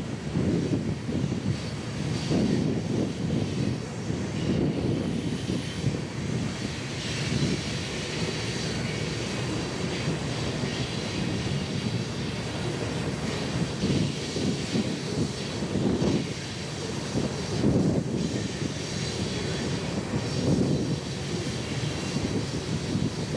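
Union Pacific freight train rolling past with a steady low rumble that swells and fades unevenly.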